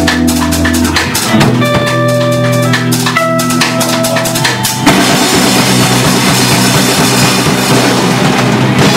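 Live instrumental rock band (drum kit, electric guitar and bass) playing angular, loud music. After about a second it thins to a few held guitar and bass notes with sparse drum hits. About five seconds in, the whole band crashes back in at once, dense and loud with cymbals washing over it.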